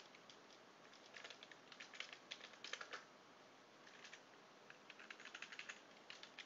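Computer keyboard typing: two faint runs of quick keystrokes about a second apart.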